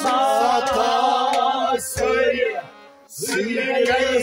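A man singing to a harmonium, over a low, regular beat. His voice drops out for a moment near the middle, then comes back in.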